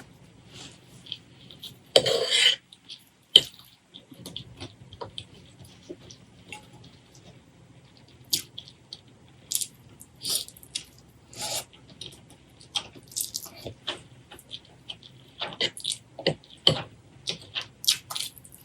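Close-miked eating sounds: wet chewing and lip smacks in many short, irregular clicks, with a louder burst about two seconds in.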